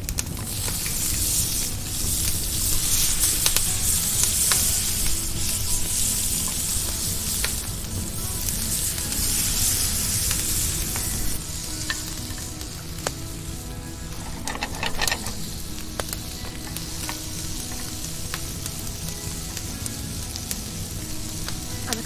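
Slices of kabocha squash sizzling in oil in a ridged grill pan over a wood fire, with many scattered pops. The sizzle is louder in the first half and eases a little about halfway through.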